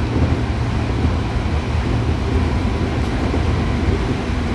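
Hankyu Kyoto Line train running at speed, heard from inside the carriage: a steady low rumble of the train in motion.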